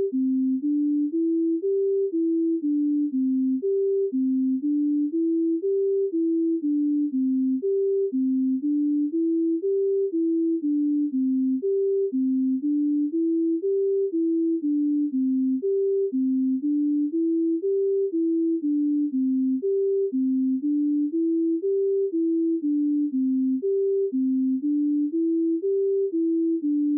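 A simple tune played in pure electronic beep tones, low in pitch, about three notes a second. A short stepping phrase repeats over and over without a break.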